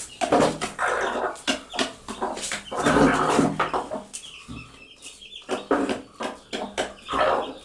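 Broody mother hens clucking and calling their chicks to food while pecking feed from plastic dishes, their beaks tapping the plates in quick clicks. Chicks peep softly now and then.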